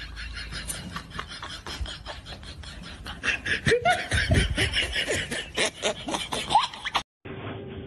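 People laughing, several voices, breaking out louder about halfway through over a quick run of short rasping pulses; the sound cuts off abruptly near the end.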